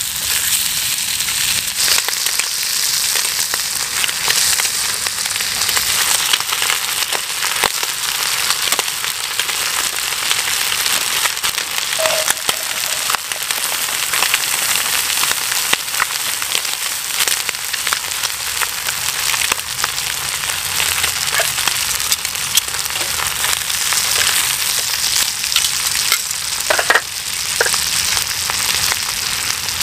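Thick-cut bacon and sausages frying in a steel pan on a gas-canister camp stove: a steady sizzle with frequent small crackles of spitting fat.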